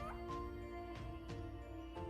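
Background music with held notes and a light, steady beat.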